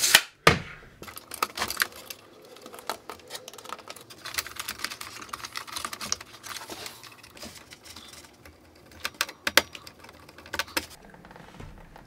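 Irregular small clicks, taps and rattles of hands handling electrical wires and cable inside a control-box enclosure, with a sharp click about half a second in.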